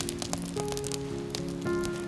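Background music of slow, held notes that change every half second or so, with a scattering of small clicks over it.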